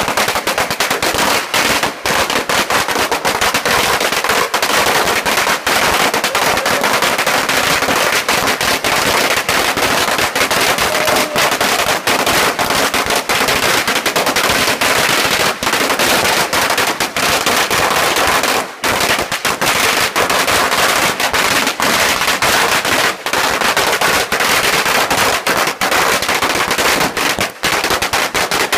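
A long string of firecrackers going off, a rapid, unbroken rattle of sharp bangs.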